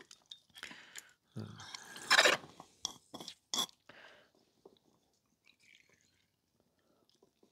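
Wet, squelchy handling sounds of a bulb-type antifreeze hydrometer as its rubber bulb is squeezed and coolant goes back into a mug: a cluster of small clicks and rustles, with a short loud noisy burst about two seconds in, then quiet.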